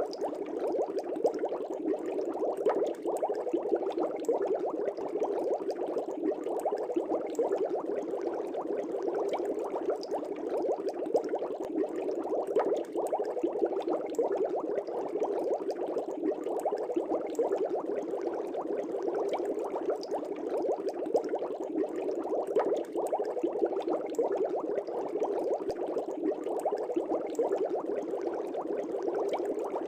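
Air bubbles streaming up through a fish tank: a steady, dense burble of small pops.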